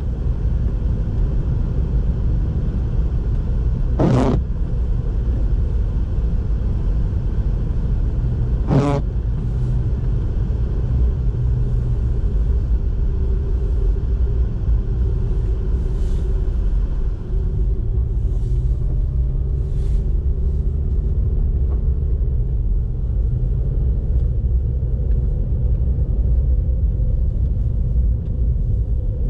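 Car driving on a snowy road: a steady low rumble of engine and tyres, broken by two sharp knocks in the first ten seconds and a few fainter ticks later.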